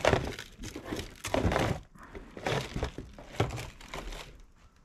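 Clear plastic wrapping crinkling and hard plastic body panels and cardboard knocking as motorcycle fairing parts are handled in their box: a handful of separate knocks and rustles, dying away near the end.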